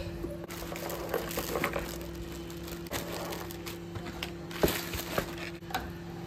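Rustling and crinkling of plastic air-pillow packing and cardboard as a parcel is unpacked by hand, with many small clicks and one sharp snap about two-thirds of the way through. A steady low hum runs underneath.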